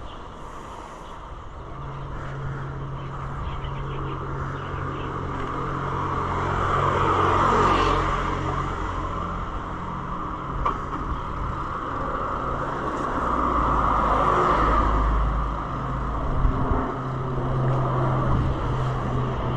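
Engine noise of passing motor traffic, swelling to a peak about seven seconds in and again about fourteen seconds in, over a steady low hum.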